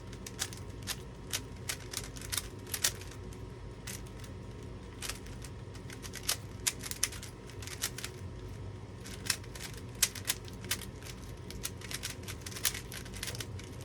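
Plastic Rubik's cube being turned fast in a speed-solve, its layers snapping round in a quick, irregular run of clicks, several a second.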